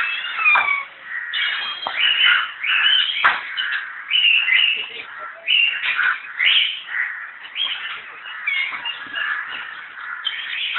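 Birds chirping and calling in a dense, unbroken chorus of overlapping short calls.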